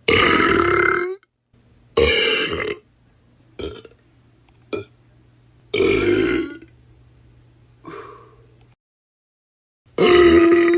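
A string of human burps, about seven of differing length and loudness with short gaps between. Long loud ones come at the start, about two seconds in, about six seconds in and near the end, and short faint ones fall in between.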